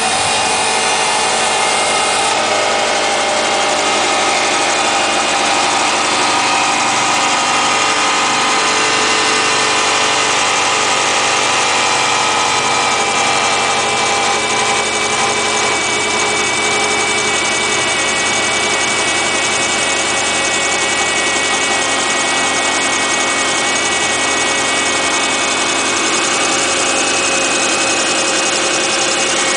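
2008 Subaru Impreza Outback Sport's flat-four engine idling steadily, with several steady high tones over the running. This is the kind of noise the owner calls odd on starting, in an engine that otherwise runs fine at 52,000 miles.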